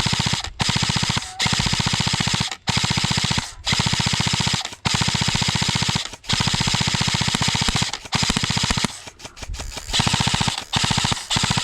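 Airsoft light machine gun firing full-auto in about ten rapid bursts, each lasting up to a couple of seconds, with only brief pauses between them.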